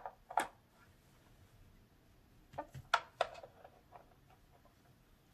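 A few light clicks and taps of small plastic toy figures being handled on a plastic toy playset: one about half a second in, then three close together around the middle, with quiet room tone between.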